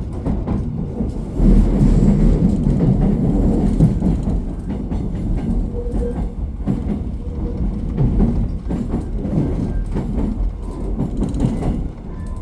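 Seoul Subway Line 2 train running along the track: a steady low rumble with scattered wheel clicks, getting louder about a second and a half in.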